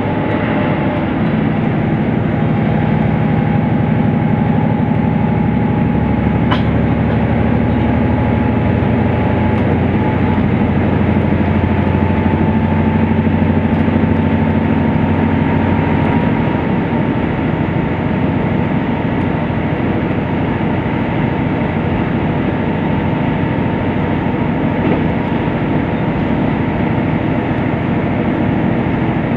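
KiHa 75 series diesel railcar running at speed, heard from inside the carriage: a steady drone of the diesel engine and wheels on the rails, with a faint whine that rises slowly over the first half.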